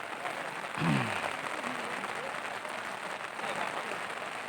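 Steady hiss of rain falling, with faint voices of people around the pond; about a second in, a voice calls out briefly, falling in pitch.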